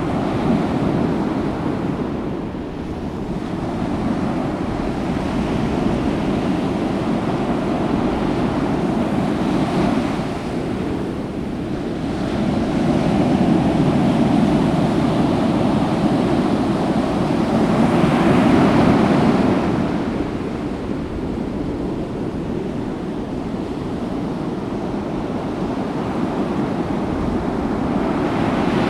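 Ocean surf: waves breaking and washing ashore in slow swells that build and ease every several seconds, with a few brighter, hissing washes as larger waves break.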